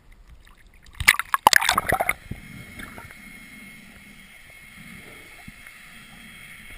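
Water splashing and rushing for about a second as a freediver with the camera goes under the surface. After that comes a quieter, steady underwater wash with faint low gurgles, heard through the camera housing.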